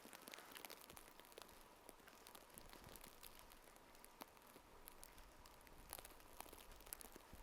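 Wood campfire crackling faintly, with scattered small irregular pops and snaps.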